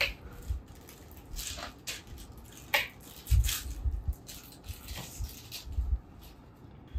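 A plastic syringe wrapper being handled and torn open: scattered crinkles and rustles, with a few soft low thumps of movement.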